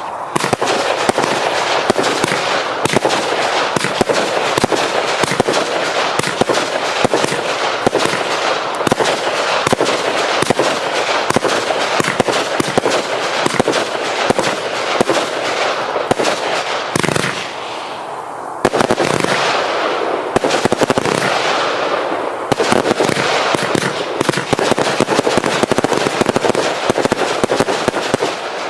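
Hallmark 'Event Horizon' 400-shot compound firework cake firing in rapid succession: a dense, unbroken stream of shots and bursts. It eases off for about a second a little past halfway, then resumes just as thick.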